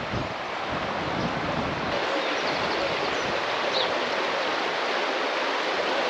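Steady rush of moving water, an even hiss with no breaks.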